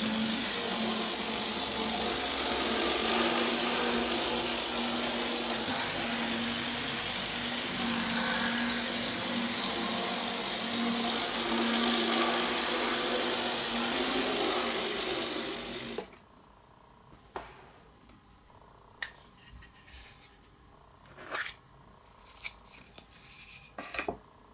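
Model train running on a curved track: the small electric motor whirs steadily under the clatter of wheels on rail, with a low hum that comes and goes. It cuts off suddenly about two-thirds of the way in, leaving a few light clicks and taps.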